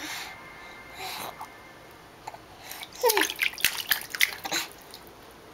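A baby slapping and splashing bathwater with both hands: a quick, loud flurry of splashes starting about three seconds in and lasting a second and a half, opening with a short falling squeal from the baby.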